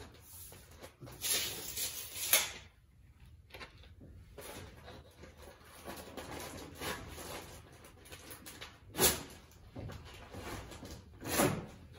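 Rustling and scuffing of materials being handled by hand, with sharp knocks about two seconds in, about nine seconds in and near the end.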